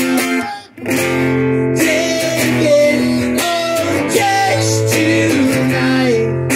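Live acoustic guitar strummed, with a man singing over it; the playing breaks off briefly under a second in, then carries on.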